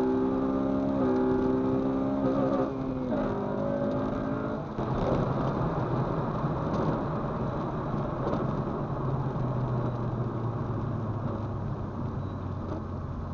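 Honda Civic Si's engine heard from inside the cabin, accelerating with its note rising and stepping down a few times. After about five seconds the engine note fades under steady road and tyre noise on wet pavement as the car cruises.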